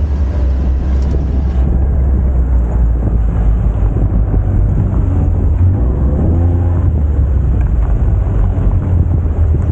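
A UTV under way, its engine giving a steady, loud low rumble mixed with the rush of the ride.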